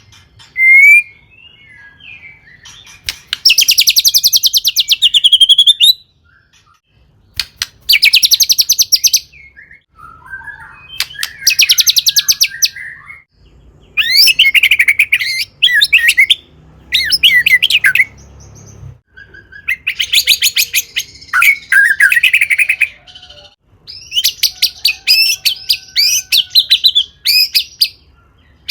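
White-rumped shama (murai batu) singing loudly in phrases of a few seconds each, separated by short pauses. The phrases are runs of fast repeated notes mixed with whistled, gliding notes.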